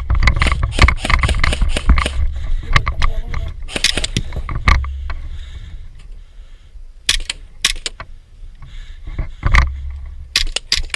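Gear rattling and clicking with low rumbling handling noise as an airsoft player moves, dense for about the first five seconds. Several separate sharp clicks follow later.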